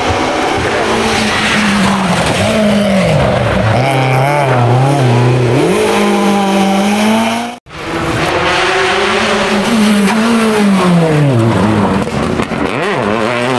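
Rally car engines at full throttle on a special stage. The engine note drops as the driver lifts and brakes, then climbs again through the gears. The sound cuts out sharply about seven and a half seconds in, and a second car follows, its revs dipping and rising the same way.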